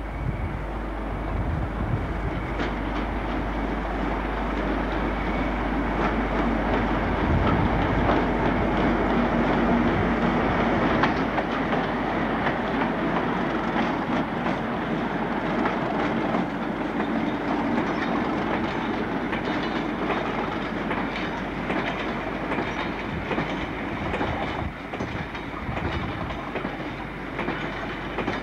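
Diesel-hauled freight train of tank wagons passing, engines running under the steady rumble of the train, with wheels ticking over rail joints. It is loudest about ten seconds in and eases off after.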